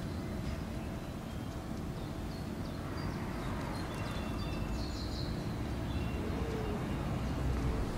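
Outdoor ambience in a park: a steady low rumble with a few short, high bird chirps in the middle.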